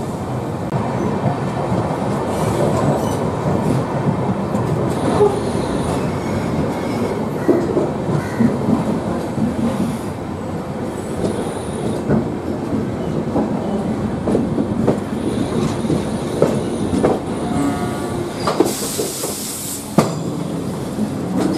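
LHB passenger coaches rolling slowly through a rail yard, wheels clicking over rail joints and points with some flange squeal. Near the end comes a sharp hiss of about a second: air rushing out of the brake pipe as the alarm chain is pulled.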